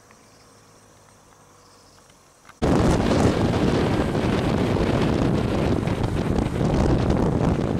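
Faint outdoor background, then about two and a half seconds in, a sudden loud rushing noise starts and keeps going: wind buffeting the microphone mixed with road traffic.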